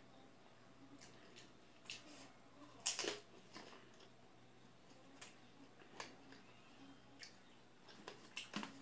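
Close-up eating sounds of pani puri: a cluster of sharp crunching clicks about three seconds in as a crisp puri shell is bitten, then scattered soft mouth clicks while chewing, with another short group of clicks near the end.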